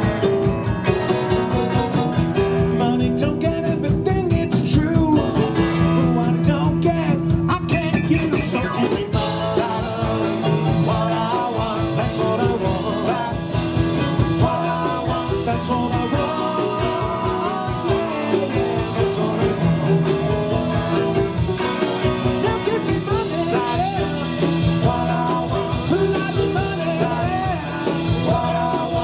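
Live rock band playing: electric guitars, drums with a steady beat and keyboard, with a man singing lead into a microphone from about ten seconds in.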